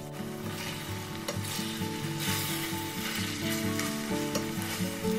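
Shredded chicken frying and sizzling in oil in a stainless steel pan while it is stirred with a wooden spoon; the sizzle grows louder about two seconds in. Background music with a melody plays underneath.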